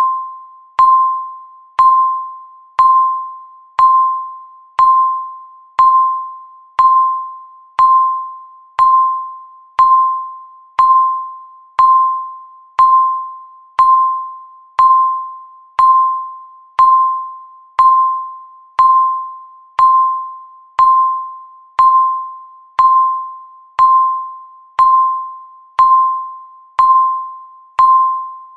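Countdown timer beeping once a second: each beep is a single high ringing tone at the same pitch that starts sharply and fades away before the next.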